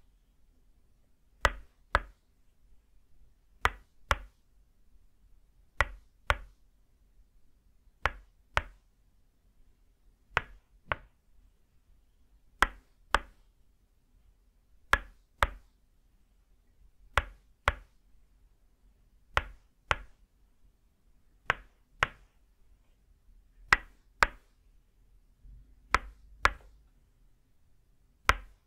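Tok sen massage: a wooden mallet (kon) striking a wooden peg (lim) held against the shoulder muscles, giving sharp wooden clacks in pairs, two quick strikes about half a second apart, repeated roughly every two seconds.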